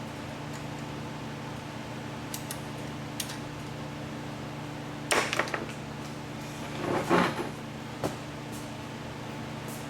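Hard objects being handled: a few light clicks, then two short clattering rattles about five and seven seconds in, and a last sharp click, over a steady hum like a fan or air conditioner.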